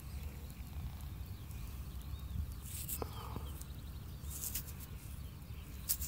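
Fingers rubbing dirt off a small dug-up coin in the palm, a few brief scratchy rasps over a steady low wind rumble on the microphone.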